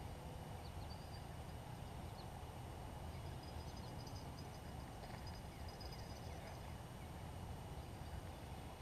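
Steady low outdoor background noise with faint, short high chirps now and then.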